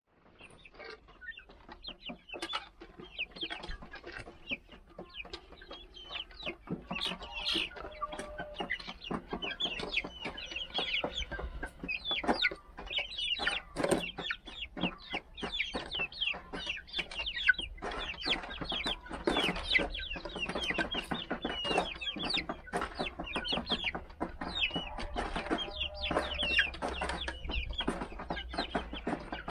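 A flock of young Rhode Island Red chickens calling continuously, a dense run of short, high cheeps and clucks that overlap one another, rising from quiet to full over the first few seconds.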